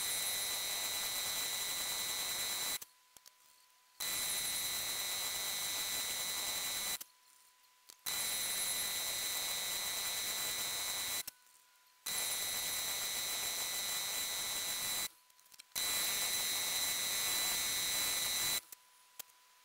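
Drill boring into a solid aluminium cylinder with mist coolant spraying: a loud, steady hiss with a high whine. It comes in five stretches of about three seconds, with short quiet gaps between them.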